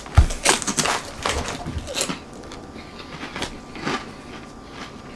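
Someone biting and chewing crunchy fried pork rinds: a dense flurry of crisp crunches starting with a low thump, thinning to a few scattered crunches after about two seconds.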